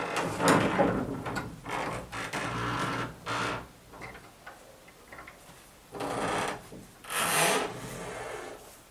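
A large wooden plank barn door being pushed open, scraping and rattling in a series of rough bursts with short pauses between them.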